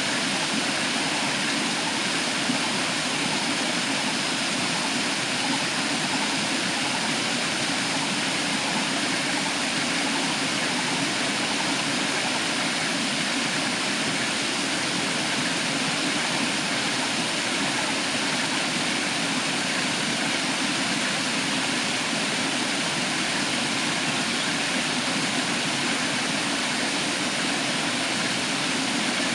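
Waterfall and stream water rushing in a steady, unbroken roar.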